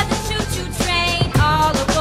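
Upbeat background music with a steady drum beat and a pitched melody.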